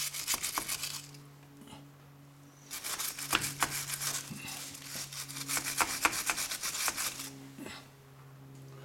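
Hand wire brush scrubbing the metal rear axle housing in quick rasping strokes, in two bouts: one that stops about a second in and a longer one from about three to seven seconds in.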